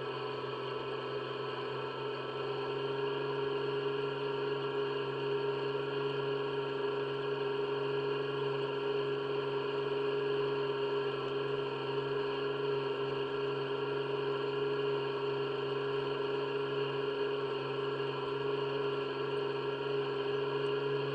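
Farm machinery engine running at a constant speed: a steady drone with a strong hum.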